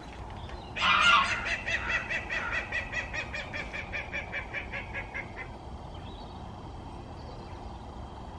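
Farmyard waterfowl calling in a rapid series of about five calls a second, starting loud about a second in and fading away over some four seconds.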